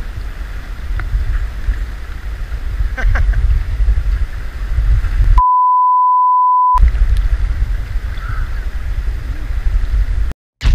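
Wind buffeting the microphone over the rush of a shallow, fast river, with a few small splashes. About halfway through, a steady electronic bleep of about a second and a half cuts in and replaces all other sound.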